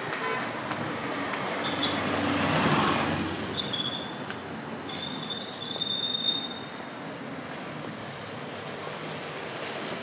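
A vehicle passes close by, then its brakes squeal with a high, piercing tone for about three seconds before cutting off.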